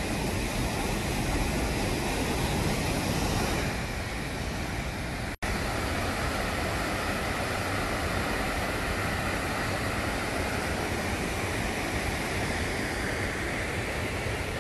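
Steady rushing of river water, an even noise without rhythm. It drops out for an instant about five seconds in, then carries on the same.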